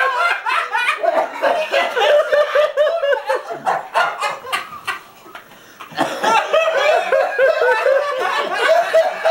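A group of young men laughing hard together in rapid, repeated bursts of laughter. The laughter dies down briefly about halfway through, then breaks out again.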